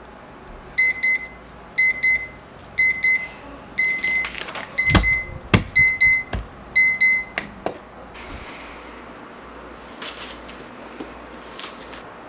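Digital alarm clock beeping its alarm in short bursts of rapid, high beeps about once a second. Loud knocks and clicks come as a hand handles the clock, and the beeping stops about seven seconds in as the alarm is switched off.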